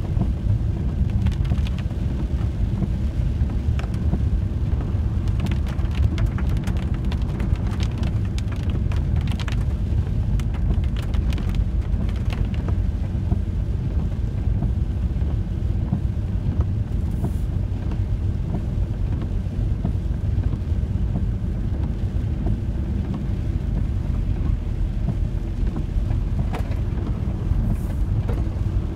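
VW T4 campervan driving on a wet road, heard from inside the cab: a steady low engine and road rumble, with scattered rain ticks that come thickest in the first dozen seconds and again near the end.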